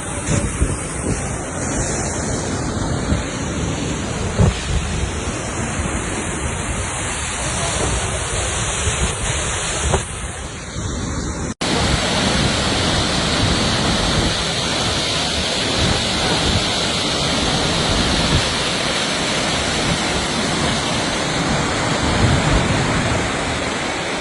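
Waterfall: steady, loud noise of falling water, with wind thumping on the microphone in the first half. The sound breaks off for an instant about halfway through, then carries on steadier and fuller.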